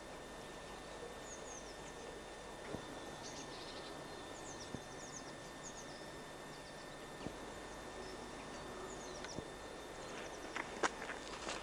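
Outdoor ambience: a steady hiss of background noise with small birds chirping in short, high, falling notes. A few sharp clicks or knocks come near the end.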